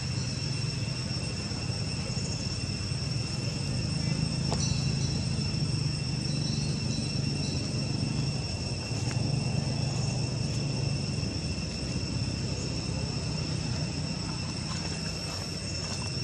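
Insects trilling steadily on a high, unbroken tone, over a low steady rumble.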